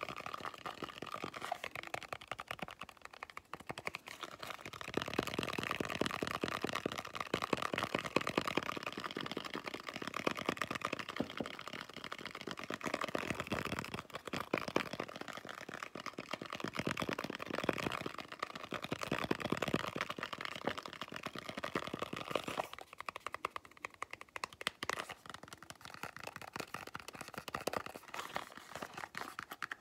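Rapid fingertip tapping and scratching on objects held close to the microphone, a fast, unbroken patter of small clicks. In the last several seconds it is fingers tapping and scratching on a cardboard soap box.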